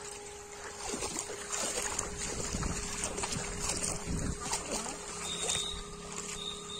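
Splashing and sloshing of hands and feet in shallow, muddy water, irregular and uneven, over a steady background hum.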